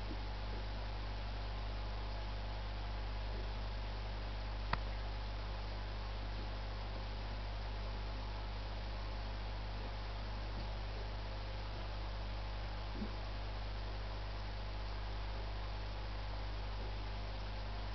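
Steady low electrical hum with a hiss over it. There is one sharp click about five seconds in and a faint tick near thirteen seconds.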